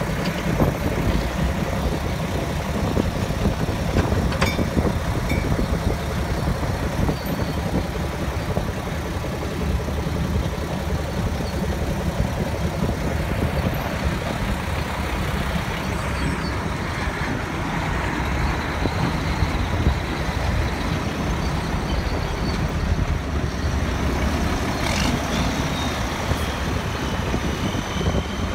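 Heavy diesel truck engine idling with a steady low rumble.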